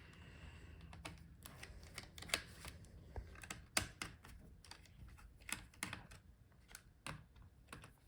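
Faint, irregular small clicks and taps of a screwdriver working the battery's retaining screws inside an opened laptop.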